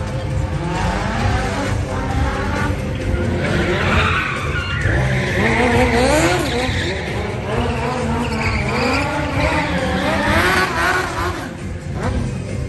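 Stunt cars driving hard in a show arena, their engines revving and tyres squealing in wavering, rising and falling tones as they skid and drift.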